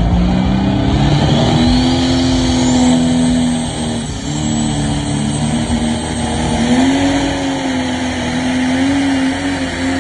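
T.8 Tomcat, a New Holland pro stock pulling tractor, with its turbocharged diesel running hard under full load on a pull. The engine note climbs in the first couple of seconds while a high turbo whistle rises above it. The note sags briefly around four seconds, then climbs again.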